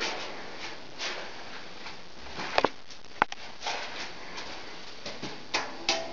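A few sharp clicks and knocks over a low steady hiss: a quick double click about two and a half seconds in, another a moment later, and two more near the end as a hand takes hold of the metal door of a recessed electrical breaker panel.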